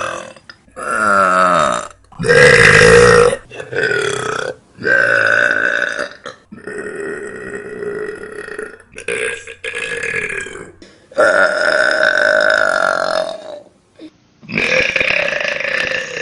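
A person burping loudly, about eight long burps one after another with short breaks between. Some run over two seconds, and the loudest comes about two seconds in.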